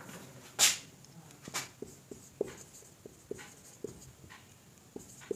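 Marker writing on a whiteboard: a string of short squeaks as the letters are drawn. A single short, sharp noise about half a second in is the loudest moment.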